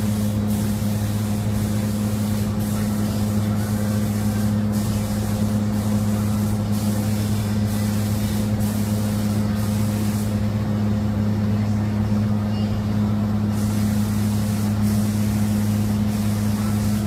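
Compressed-air paint spray gun hissing as it lays down paint, with brief breaks where the trigger is let off and a longer pause about ten seconds in. A steady low hum runs underneath.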